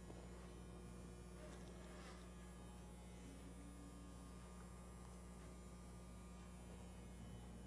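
Near silence: a faint, steady electrical hum under room tone.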